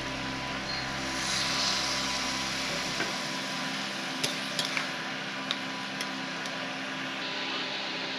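Egg curry sizzling in a metal pan as a spatula stirs it, with several sharp clicks of the spatula against the pan around the middle.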